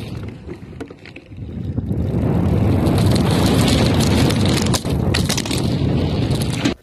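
Mountain bike tyres rolling fast over the slats of a wooden boardwalk ramp: a dense rattling rumble full of clatters from the plank joints, with wind on the microphone. It turns loud about two seconds in and cuts off just before the end.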